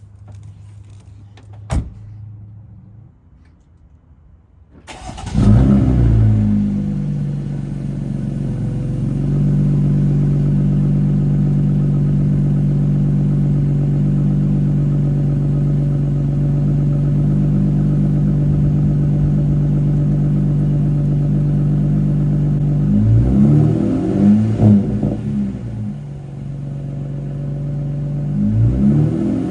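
Jeep Gladiator's 3.6-litre V6 breathing through an AWE Trail Edition exhaust: it starts about five seconds in, flares up, and settles into a steady idle. It is given a few quick revs around twenty-three seconds in and again near the end. A single sharp click comes about two seconds in, before the start.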